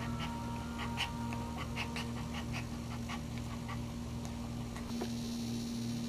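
A small dog in labor panting in quick, short breaths, about two to three a second, which stop about three and a half seconds in. A steady low hum lies underneath.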